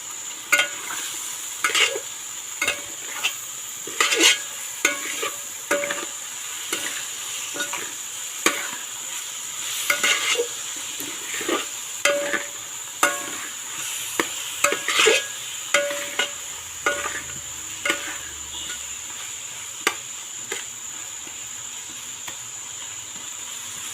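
Onion, tomato and potato sizzling in oil in a pan with freshly added ginger, garlic and green chilli paste, as a metal spatula scrapes and knocks against the pan every second or so. The knocks thin out near the end while the sizzle goes on.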